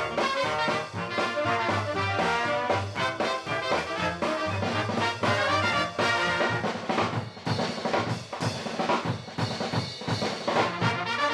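Ragtime instrumental played by a small orchestra, with brass and a drum kit keeping a brisk, busy beat of quick notes.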